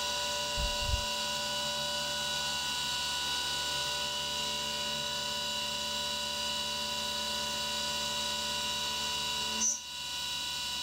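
CNC milling machine taking a slow finishing profile pass with an end mill under flood coolant: a steady whine at several fixed pitches over the hiss of spraying coolant. Two short low thumps come about a second in, and the sound drops out briefly near the end.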